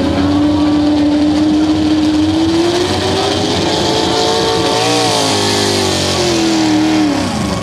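Pro Stock 4x4 pulling truck's engine running hard under load as it drags the weight sled. The pitch climbs steadily, wavers briefly about five seconds in, then falls near the end.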